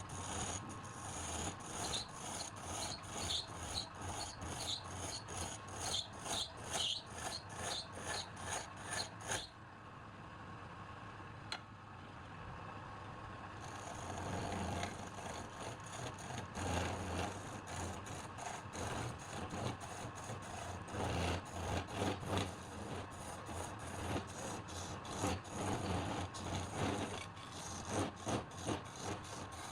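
Wood being worked by hand in rhythmic back-and-forth rubbing strokes, like rasping or sanding, at about two to three strokes a second, with a steadier, quieter stretch for a few seconds in the middle.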